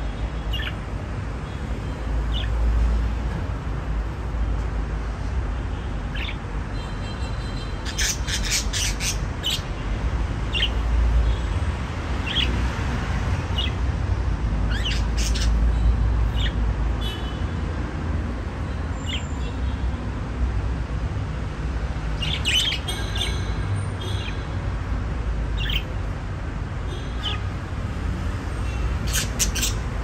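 Budgerigars chirping: short high calls scattered throughout, now and then in quick clusters, over a steady low rumble.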